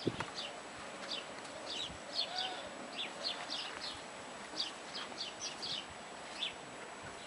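Birds chirping: many short, high chirps in quick groups, over a steady outdoor background.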